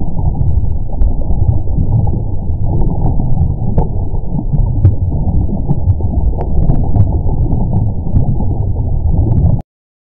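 Undersea magma sound effect: a deep, continuous churning rumble with faint scattered crackles, which cuts off suddenly near the end.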